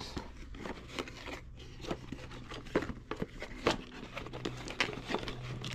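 A small cardboard box being opened by hand, its flaps and the plastic-bagged parts inside rustling and crinkling in short, scattered bursts.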